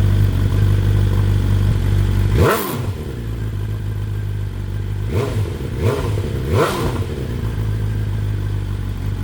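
BMW S1000XR inline-four motorcycle idling through decat headers with only the end-can dB killer fitted, revved in three quick throttle blips: one about two and a half seconds in, then two close together a little past halfway, each rising and falling straight back to idle.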